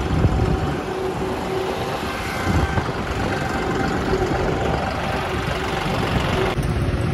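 Diesel engine of a John Deere 5405 tractor running steadily as the tractor drives along a road, heard close from the tractor seat as a dense low rumble with a faint steady hum.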